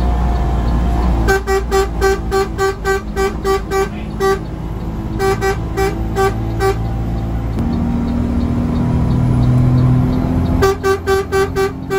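A bus horn sounding in rapid, evenly spaced single-pitched toots, nearly four a second, in three runs, heard from inside the driver's cab. Under it the bus engine runs continuously, growing louder between the second and third runs.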